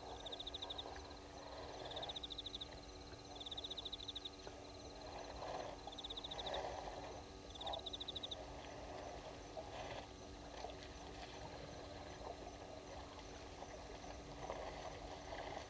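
Night ambience at a waterhole: a high, rapid pulsed trill repeats five times at intervals of about a second and a half, then stops about halfway through, over a steady high-pitched whine. Underneath, an elephant herd drinking at the water's edge makes irregular splashing and sloshing.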